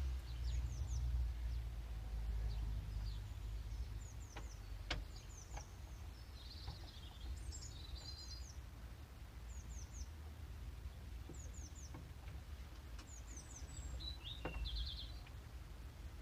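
Small birds chirping repeatedly in quick runs of two or three short descending notes, over a steady low outdoor rumble. A few faint clicks sound through it.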